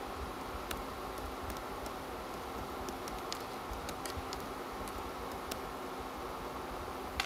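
Faint, scattered light taps of fingertips on a phone screen over a steady room hum.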